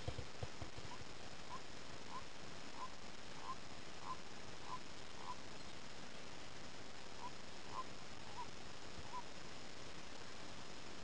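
A distant animal calling: short, evenly spaced single notes about 0.6 s apart, in a run of eight, then after a pause four more, over steady hiss. A few soft low knocks come right at the start.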